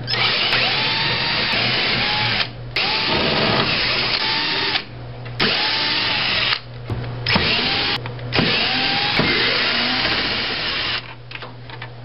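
Black & Decker VPX cordless drill-driver backing screws out of a tankless water heater's sheet-metal burner cover plate. It runs in five bursts of up to a few seconds, with short pauses between them, and the motor whine rises and falls within each burst. It stops shortly before the end.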